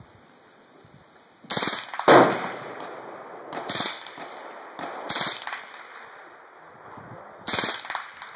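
Suppressed .22 AR-15 firing on full auto in five short bursts, the loudest about two seconds in.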